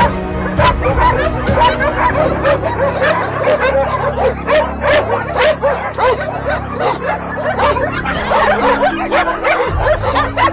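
Many dogs in shelter kennels barking at once, a dense chorus of overlapping barks that never lets up, with background music underneath.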